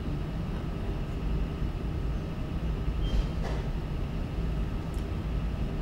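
Room tone: a steady low hum, with a couple of faint short rustles or clicks about three and a half and five seconds in.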